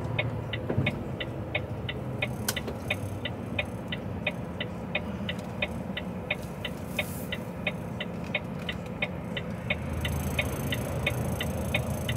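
Turn-signal indicator ticking steadily in an HGV cab, about three ticks a second, over the lorry's diesel engine idling. Near the end a deeper rumble of traffic passing close by grows louder.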